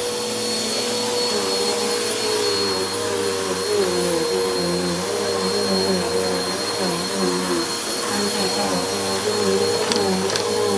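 Helix Turbo bagless upright vacuum cleaner running on carpet, a steady motor hum whose pitch wavers up and down. A few sharp clicks come near the end.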